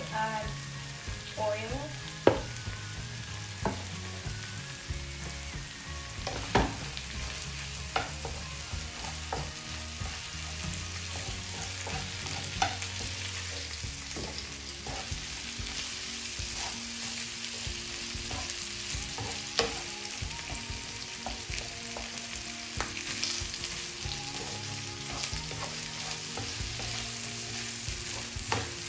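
Canned corned beef and sliced onions sizzling in a frying pan, with a wooden spatula stirring and scraping the mix and now and then knocking sharply against the pan.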